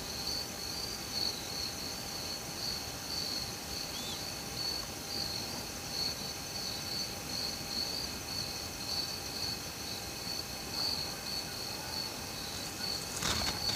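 An insect chorus chirping in a steady, evenly pulsed high trill, about two pulses a second. A loud rush of noise breaks in just before the end.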